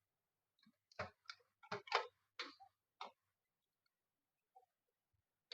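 A quick series of about six short plastic clicks and taps, over roughly two seconds, as a front-panel cable connector is handled and pushed onto its motherboard header.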